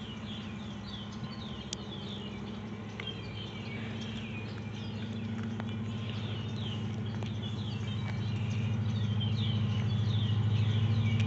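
Union Pacific freight train approaching behind an SD70ACe and an SD70M diesel locomotive, their two-stroke EMD 710 V16 engines making a low, steady drone that grows steadily louder. Small birds chirp repeatedly over it.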